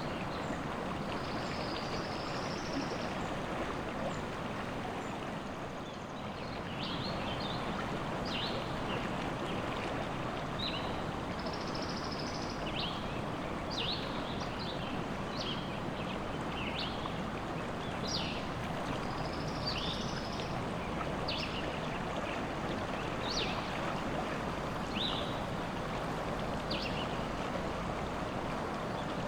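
River water running with a steady rush, and small songbirds singing over it: a few brief high warbles early on, then short high chirps repeating every second or so from about six seconds in.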